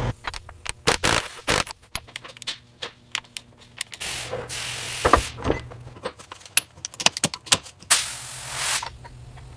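Workshop work on metal: irregular clicks, knocks and scrapes of hand tools, with a hissing burst about four seconds in and another near the end.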